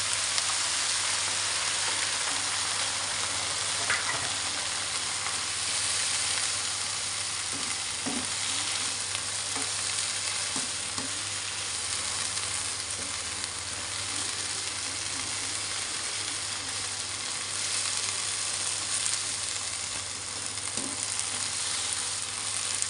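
Stir-fry of tempeh, tofu and vegetables sizzling steadily in a frying pan with a splash of added water, stirred with a slotted metal spoon.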